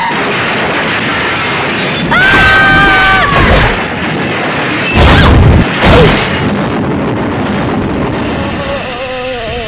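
Film soundtrack of a steam train running with a steady rumble. About two seconds in, a high steady tone is held for over a second. Two loud booms follow about five and six seconds in.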